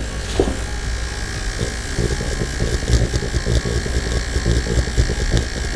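Permanent makeup machine running at its lowest speed, a steady low buzz, as its needle is swept quickly across practice skin.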